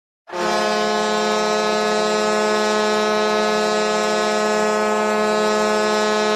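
Hockey goal horn sounding one long, steady blast at a single pitch, starting a moment in.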